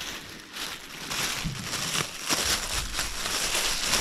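Thin clear plastic bag crinkling and rustling as it is handled and opened, louder from about a second in.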